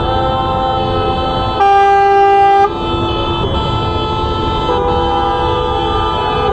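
Many car horns honking at once, their held tones overlapping, as celebratory honking in a crowded street. One louder horn blast lasts about a second, starting a little over a second and a half in.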